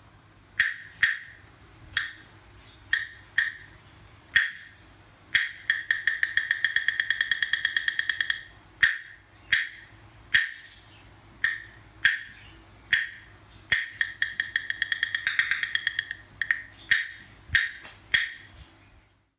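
Chinese opera percussion beats: sharp, high-ringing wooden knocks like a wood block, struck singly about every half second to a second, breaking twice into long fast rolls of rapid strikes, about six seconds in and again about fourteen seconds in.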